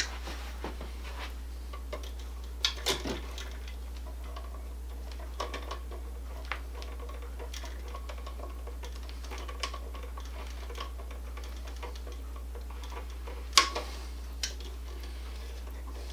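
Scattered small clicks and taps of hands handling a light switch and its wiring, with a sharper click about thirteen and a half seconds in, over a steady low hum.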